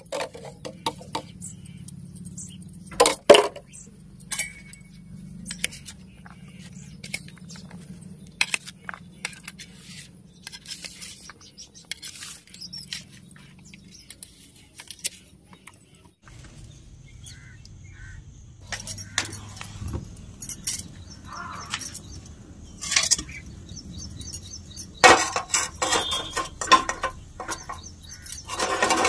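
Steel spoon clinking and scraping against a steel plate while tossing chopped pumpkin with spices: scattered short clinks and clicks. Later come louder metal clanks in a few clusters, from a steel kadhai and cookware handled on a gas stove.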